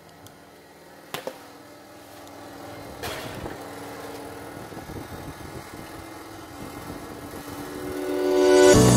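A metal baking tray being handled and slid into an oven, with sharp clicks and a knock against the oven rack, over a steady running hum. Music fades in near the end and becomes the loudest sound.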